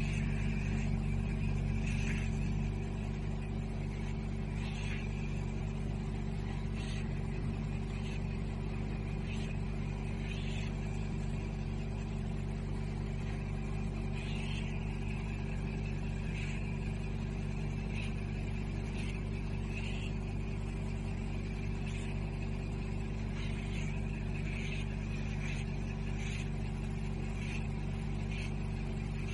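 VelaShape body-contouring machine running, most likely its vacuum suction pump: a steady low hum with faint short high blips every second or two.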